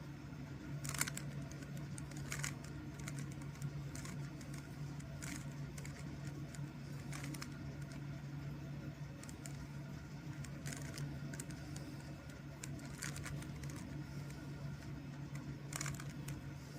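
Plastic Rubik's Cube being turned by hand, its layers clicking and clacking irregularly every second or two, over a steady low hum.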